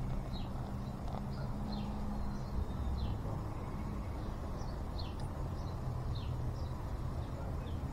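Beer poured hard into a tall glass, a thin steady stream splashing into rising foam. Birds chirp throughout in short falling notes, every second or so, over a low steady hum.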